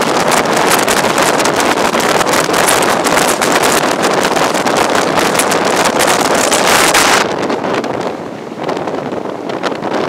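Heavy wind buffeting the microphone held out of the window of a fast-moving High Speed Train, over the train's running noise. The buffeting eases suddenly about seven seconds in, then builds again near the end.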